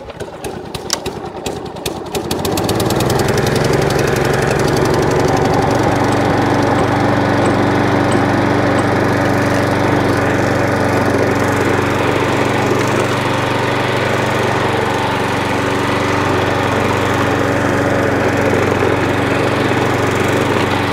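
Hayter 41 lawn mower engine started on choke, firing rapidly and catching within about two seconds. It then runs steadily at a constant speed.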